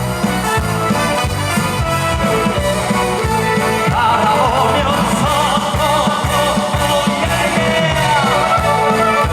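Live band music with a steady drum beat, and a wavering melody line coming in about four seconds in.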